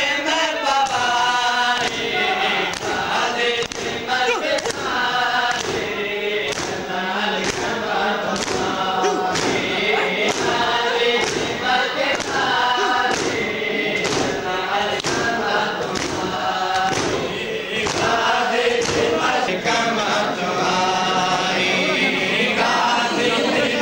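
Men chanting a Punjabi Shia nauha (Muharram lament) in chorus, keeping time with matam: open-hand slaps on their chests about one and a half times a second.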